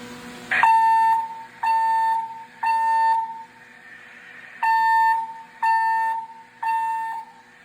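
Fire alarm speaker sounding a temporal-three evacuation tone: two groups of three steady beeps about a second apart, with a longer pause between the groups. It is the alert tone that opens a Siemens voice evacuation message.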